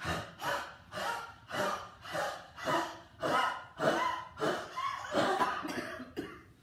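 A person forcefully huffing air out through the mouth in quick, short, even bursts, about two a second, as a yogic cleansing breath to expel air from the lungs.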